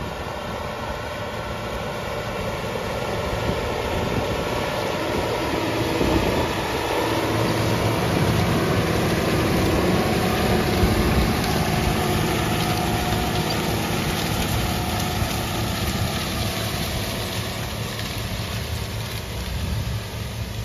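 Case IH 580 Quadtrac tracked tractor's diesel engine running steadily under load as it pulls a tillage implement through corn stubble. It grows louder as it passes close by about halfway through, then falls away again.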